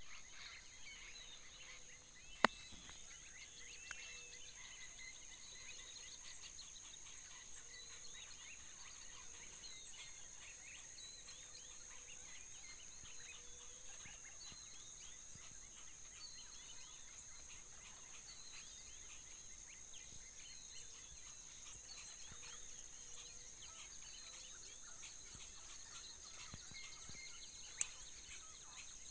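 Faint savanna ambience: a steady high insect trilling with many short chirping calls over it. Two sharp clicks, one about two seconds in and one near the end, are the loudest sounds.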